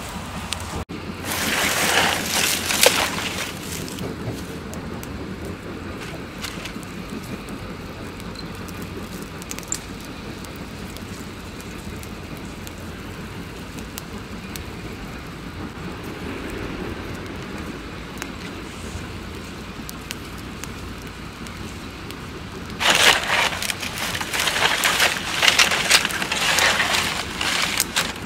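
Open cooking fire of wood and dry palm fronds crackling under a wok, with two louder spells of dense crackling: one from about a second in, and another over the last five seconds.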